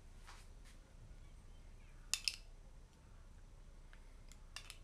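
Metal spoon clinking against a small glass bowl while scooping out a thick sauce: a sharp double clink about two seconds in and a few lighter clinks near the end.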